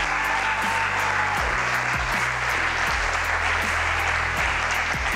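Audience applauding over background music with a steady bass beat.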